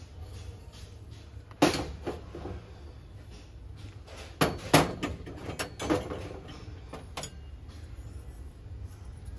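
Several sharp knocks and clacks of hard objects being handled and set down over a steady low hum. The loudest comes about a second and a half in, followed by a close pair around four and a half seconds in.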